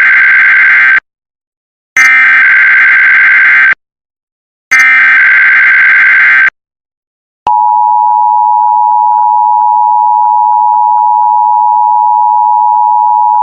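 Emergency Alert System test signal. It begins with the screeching data bursts of the SAME header, sent three times with short silences between. About seven and a half seconds in, the steady two-tone EAS attention signal starts and holds.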